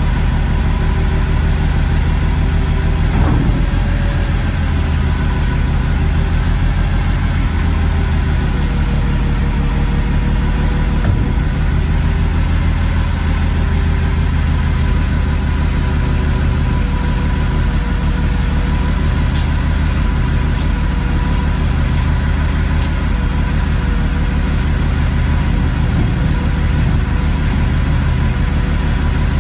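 Peterbilt front-loader garbage truck's engine idling steadily while the truck stands still. A few faint clicks come about two-thirds of the way through.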